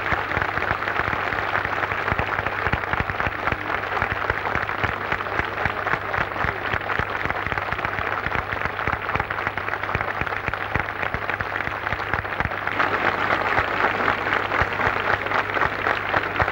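A large crowd applauding, many hands clapping at once, swelling slightly about three-quarters of the way through. A steady low hum runs beneath it.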